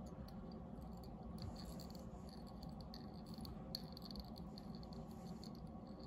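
Faint handling sounds, soft scattered ticks and rustles over a low steady room hum, as tying thread is wrapped from a bobbin around a foam fly on a hook held in a fly-tying vise.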